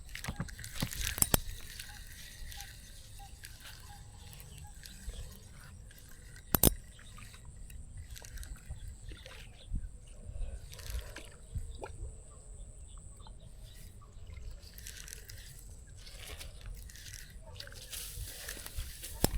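Water sloshing and splashing irregularly, with a sharp knock about a second in and a louder one near seven seconds.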